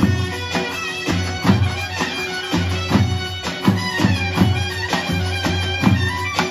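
Davul bass drum beating about twice a second under a loud, shrill reedy wind melody: Turkish folk dance music of the davul-and-zurna kind.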